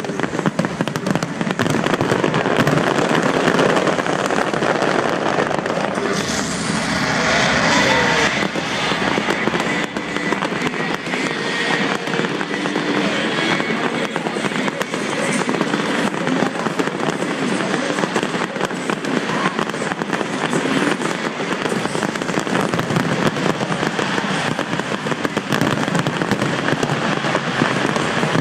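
Large fireworks display: dense, continuous crackling and popping of many shells bursting at once, without a pause.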